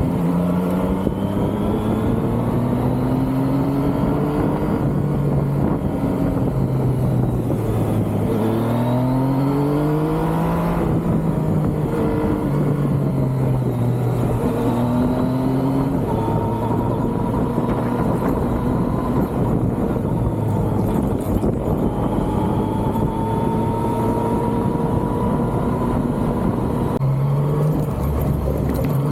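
Yamaha MT-09's inline-three engine running under way. Its pitch climbs repeatedly under acceleration and drops back between climbs, as with gear changes and easing off the throttle.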